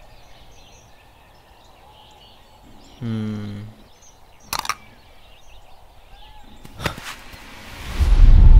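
Coffee splashing onto the ground as it is thrown out of a tumbler, a loud rushing splash near the end. Before it, faint outdoor ambience with bird chirps, a brief low hum about three seconds in, and two sharp clicks of the tumbler.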